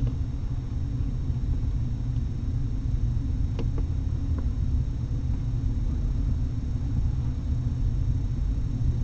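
Steady low rumble, with a faint click about three and a half seconds in.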